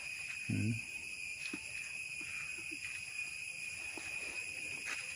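Steady high-pitched insect chorus. A brief low hum of a man's voice about half a second in.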